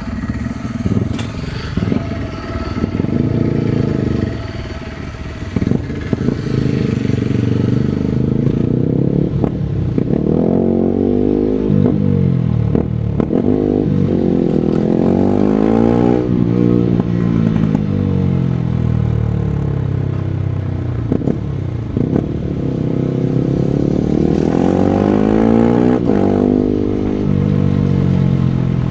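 Supermoto motorcycle engine ridden hard, revving up and falling back over and over as the rider opens and closes the throttle.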